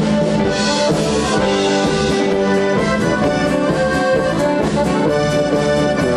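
Live polka band music led by two piano accordions playing the tune together, with a brass horn underneath.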